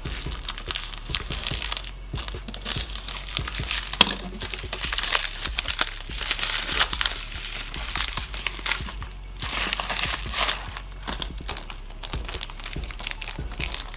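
Plastic mailer envelope and the clear plastic bag inside crinkling and rustling as they are handled and opened, with irregular small crackles throughout and one sharp crack about four seconds in.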